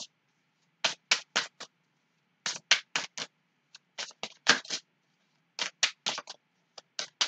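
A deck of oracle cards being shuffled hand over hand: quick swishing strokes, about four a second, in runs of four or five with short pauses between.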